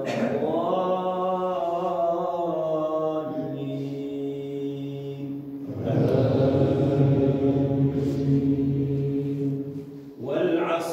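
A man's voice chanting Quranic recitation in Arabic during congregational prayer, in long drawn-out melodic phrases. About six seconds in, a louder, lower-pitched phrase begins and is held for several seconds before it fades.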